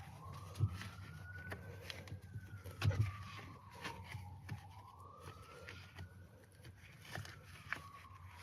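A siren wailing, its pitch slowly rising and falling about twice. Over it come scattered knocks and clicks from hands working a rubber-gripped stainless steel pedal cover onto a truck's brake pedal, the loudest about half a second in and about three seconds in.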